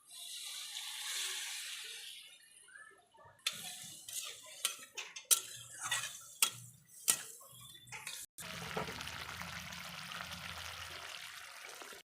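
Kitchen cooking sounds: a spell of hissing, then a run of sharp clinks of a metal utensil against a pot or dishes, then a steady hiss to near the end.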